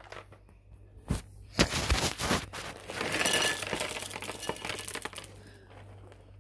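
Dry cereal being poured from its crinkly plastic liner bag into a bowl: a few knocks, then about three and a half seconds of rattling and crinkling that dies away about five seconds in.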